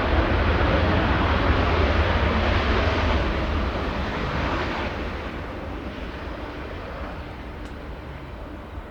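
Jet engine noise of a four-engined Boeing 747 freighter, a loud rush with a deep rumble beneath, at full strength for the first few seconds, then fading steadily away.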